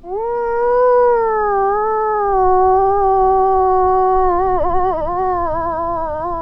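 Cow moose call used to call in a bull: one long, nasal moan that rises at the start, holds steady, then wavers and breaks from about four and a half seconds in.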